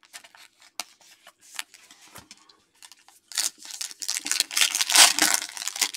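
A few light clicks of cards being handled, then from about three seconds in the loud crinkle and rip of a foil trading-card pack wrapper being torn open.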